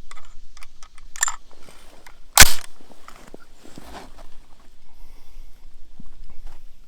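A single rifle shot from a Smith & Wesson M&P 15 (AR-15 type) about two and a half seconds in, preceded by a smaller click about a second in.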